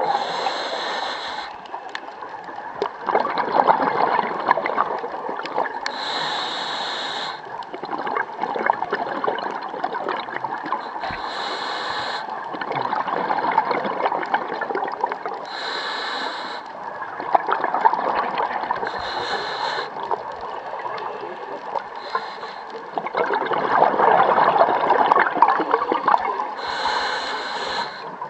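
Scuba breathing through a regulator, heard through an underwater camera housing: a short hiss every four to five seconds, with bubbling between.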